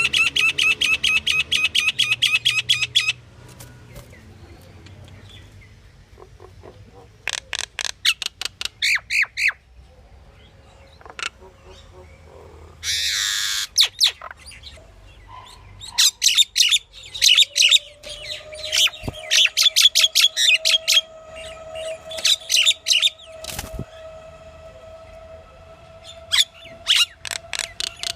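Pied myna (Asian pied starling) calling in a varied series: runs of rapid, harsh chattering notes separated by pauses, with one loud screech about thirteen seconds in. A faint steady tone runs beneath the calls through the second half.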